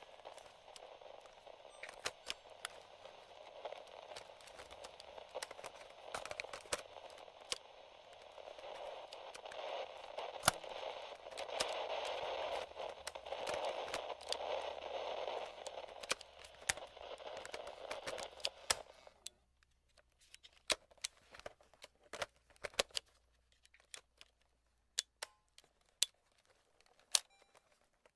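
Vintage FM/AM radio-cassette recorder hissing with static between stations, peppered with crackles and clicks. The static gets louder about a third of the way in and cuts off suddenly about two-thirds through, leaving only scattered clicks and crackle.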